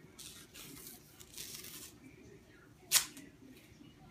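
White athletic tape being unrolled and wrapped around an ankle: a few short rasping pulls in the first two seconds, then one sharp crack about three seconds in.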